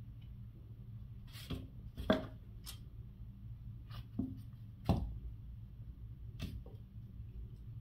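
Irregular soft knocks and taps as a tabby cat bats and paws at a dead mouse on a concrete floor. There are several, the loudest about two and five seconds in, over a low steady hum.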